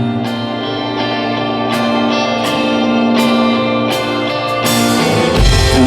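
Live rock band playing an instrumental passage between vocal lines, with guitar prominent over sustained chords. The bass and drums come in heavier near the end.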